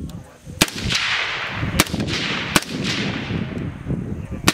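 Head Down Firearms suppressed MK18 5.56 mm carbine firing three single shots, each trailing off in echo. A rapid full-auto string begins at the very end.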